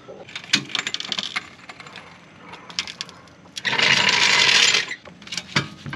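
Floor jack being lowered from under a car's rear lower control arm: a run of metallic clicks and clanks, then a harsh noise lasting about a second, about four seconds in.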